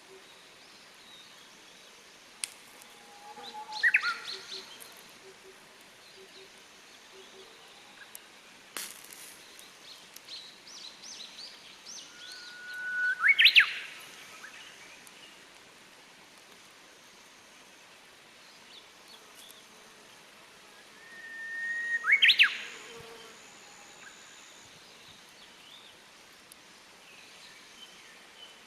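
Japanese bush warbler singing its "hoo-hokekyo" song three times, about nine seconds apart: each a long held whistle followed by a quick rising flourish. A few sharp clicks fall between the songs.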